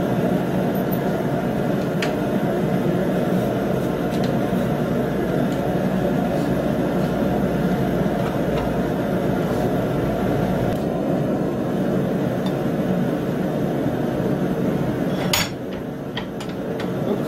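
Steady roar of a running blacksmith's forge, with a few light metal clinks and one sharp metal clank near the end.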